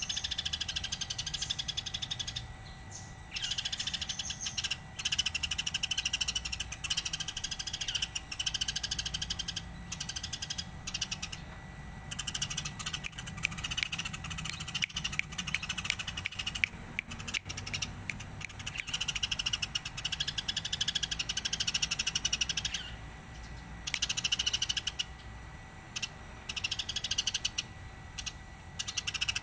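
Eurasian tree sparrow chirping in long, rapid runs of high chirps, broken by brief pauses every few seconds.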